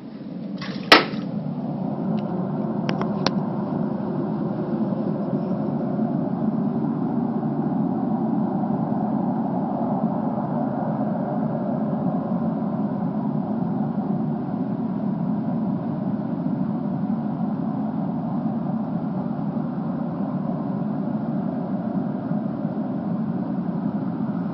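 A steady rumbling drone from the sky, an unexplained strange noise, swelling in over the first couple of seconds and then holding level throughout; a sharp click about a second in.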